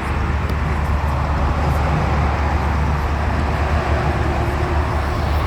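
Steady road noise of a vehicle moving in highway traffic: a deep, even rumble with tyre hiss above it.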